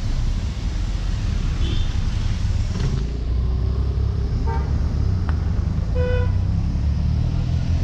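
Steady low rumble of road vehicles with a few short horn toots; the clearest two come around the middle, about a second and a half apart.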